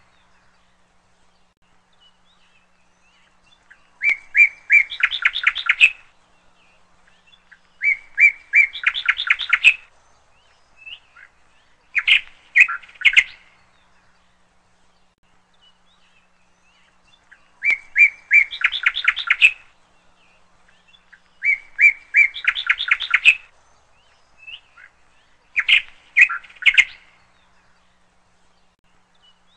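A songbird singing in short phrases, six of them a few seconds apart, each a run of repeated chirps that quickens into a fast trill.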